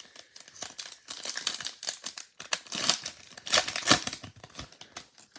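Crinkling and tearing of a baseball trading card pack's wrapper as it is ripped open, in uneven rustling bursts, loudest about a second and a half in and again near four seconds.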